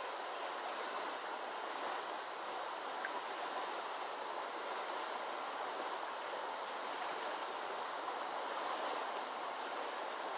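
Steady rushing of water in a flooded creek.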